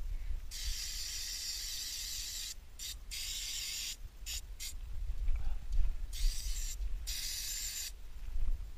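Aerosol can spraying onto a motorcycle drive chain in a series of hissing bursts, a long one first and then several short ones, each stopping sharply.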